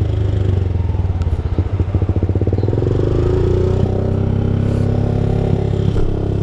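Sport motorcycle engine running at low revs as the bike pulls away, then rising in pitch as it accelerates from about three seconds in.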